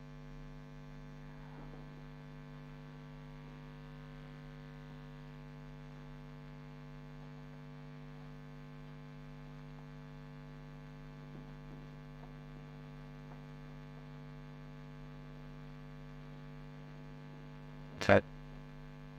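Steady electrical mains hum, a buzzing stack of pitched tones, with no speech over it. One short, loud noise breaks in near the end.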